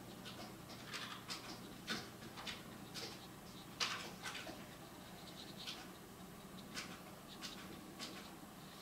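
Brush pen strokes on paper: a string of short scratchy strokes at irregular intervals, one louder near the middle.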